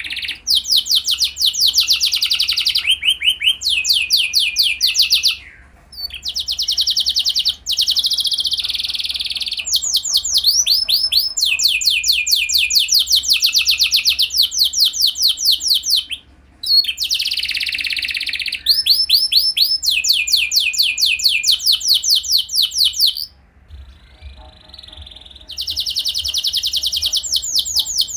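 Domestic canary singing: long runs of rapid, evenly repeated high trill notes, phrase after phrase, with a few short breaks between phrases.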